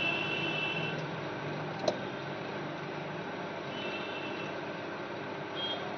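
Steady rushing hiss, like a running fan or blower, with a faint high whine that comes and goes, and one sharp click about two seconds in.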